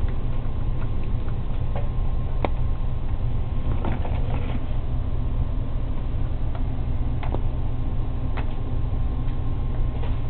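Box turtle's claws clicking on a tile floor as it walks: a few scattered sharp taps over a steady low hum.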